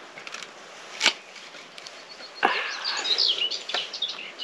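A knife sawing through a rock-hard, burnt pizza crust: a sharp crack about a second in, then crunching and scraping from about halfway to near the end. The crust is crunchy.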